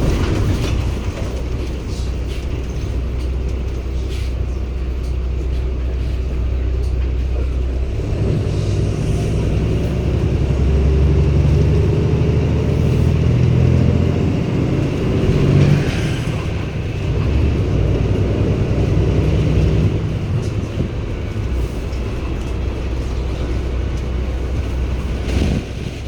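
Cummins ISB six-cylinder diesel engine of a 2016 Daewoo NEW BS090 city bus, running low and steady, then working harder under load for about twelve seconds from about eight seconds in before settling back to a low steady hum.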